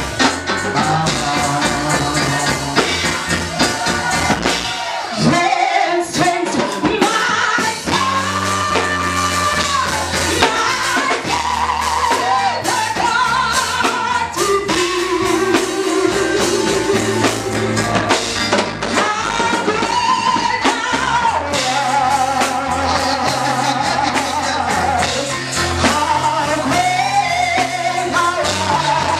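Gospel worship music: singing over keyboard, bass and a drum kit, loud and unbroken.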